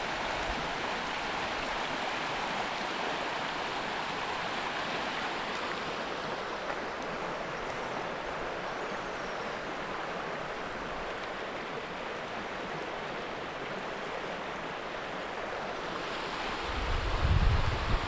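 Steady rushing of a shallow river running over a stony bed. Near the end a brief low rumble of wind buffeting the microphone.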